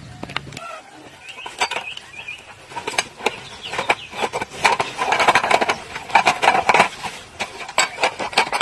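Objects being handled: a rapid run of sharp clicks and clinks with rustling, busiest about halfway through.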